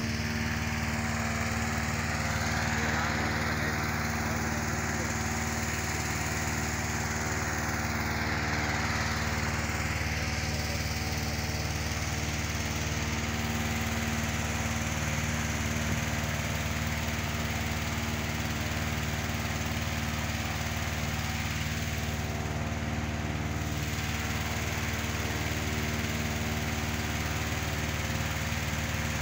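Small petrol engine of a hot air balloon inflator fan running steadily at constant speed, blowing cold air into the balloon envelope during cold inflation.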